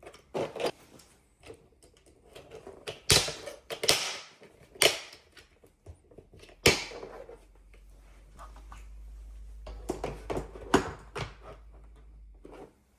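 Irregular sharp clicks, taps and knocks of hard parts being handled and fitted, a few of them loud, with a low steady hum over the second half that stops near the end.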